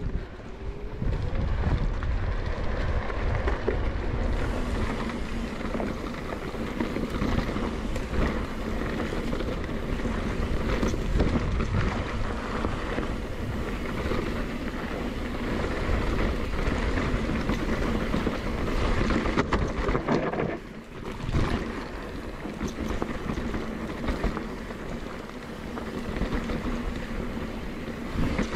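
Wind buffeting a camera microphone over the rumble and rattle of a mountain bike rolling fast down a dirt trail. It eases briefly about two-thirds of the way through.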